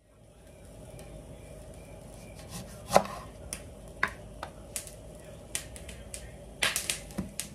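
A kitchen knife knocking against a bamboo cutting board as a lime is cut in half. A sharp knock comes about three seconds in, followed by several lighter taps and knocks and a quick cluster near the end.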